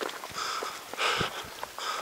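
A hiker breathing hard and fast while climbing, one breath roughly every second, with footsteps on a rocky dirt track.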